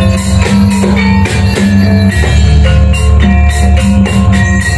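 Kuda lumping gamelan music played loud through a sound system: metallophones ringing out a melody over a steady drum beat and heavy bass.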